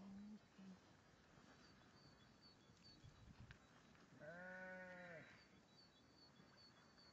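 A sheep bleats once about four seconds in, a single baa lasting about a second.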